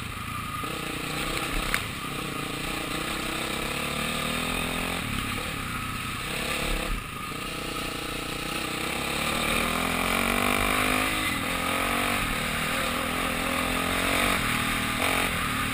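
Honda CRF450R dirt bike's single-cylinder four-stroke engine running under load as the bike is ridden through standing water. Its pitch climbs about halfway through as it accelerates.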